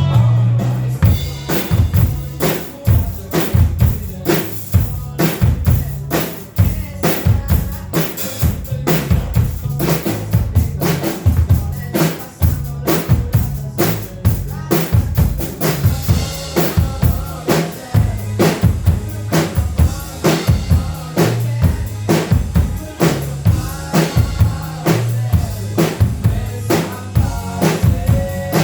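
Miked acoustic drum kits playing a steady rock beat, with kick drum, snare rimshots and cymbals. A bass line moves underneath.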